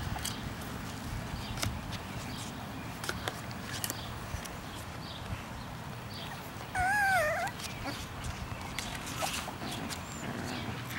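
English bulldog puppy giving one short, wavering whimper about two-thirds of the way through. Faint scratching and rustling from the puppies shifting about in a wicker basket runs underneath.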